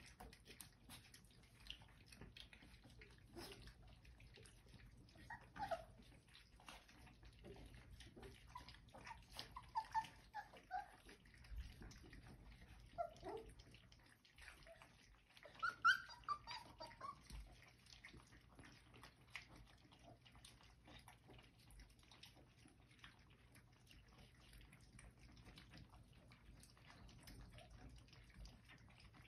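Faint sound of a litter of 4-week-old Old English Sheepdog puppies eating from a muffin tin: many small licking and lapping clicks throughout, with a few short, high puppy squeaks and whimpers scattered through the middle, the loudest about 16 seconds in.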